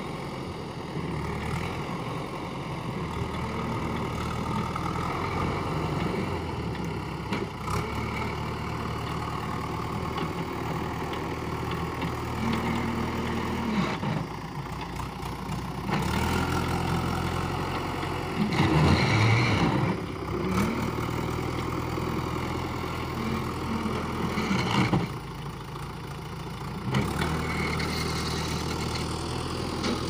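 The diesel engine of a JCB 3DX backhoe loader, running steadily as the machine pushes and levels soil with its front bucket. The engine note rises and falls with the throttle, and the loudest surge comes about two-thirds of the way through.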